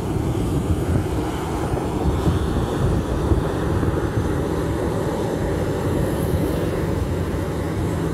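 Twin jet engines of a Boeing 737 airliner at taxi power, a steady low rumble as the aircraft rolls slowly along the apron.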